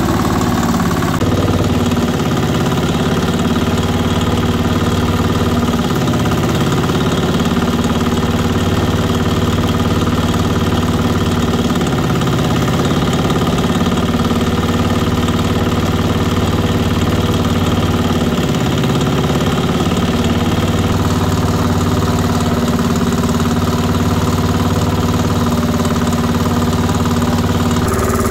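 Red single-cylinder stationary diesel engine running steadily under load, belt-driving a meat grinder as meat is fed through it.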